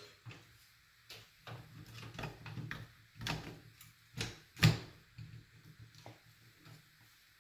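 Graphics card being handled and fitted into a metal PC case: an uneven run of knocks, clicks and short scrapes of hardware against the case, with the sharpest knock about four and a half seconds in.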